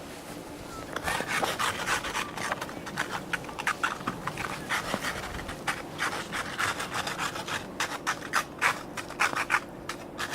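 Snow crunching and scraping in quick, irregular strokes, starting about a second in and stopping shortly before the end.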